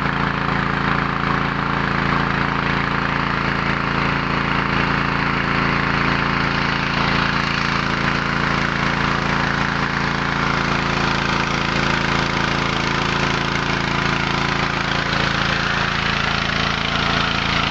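Small 6.5–7 hp petrol engine running steadily while driving a mini rice huller and polisher, a constant engine hum with a steady rushing noise over it.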